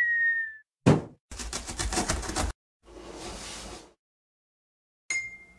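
Cartoon intro sound effects: a short whistle falling slightly in pitch, a single knock about a second in, a quick rattle of knocks, a soft whoosh, then a short ringing hit near the end.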